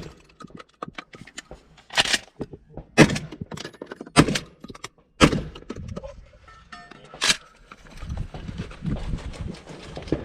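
Five gunshots on a shooting range, the first four about a second apart and the last two seconds later.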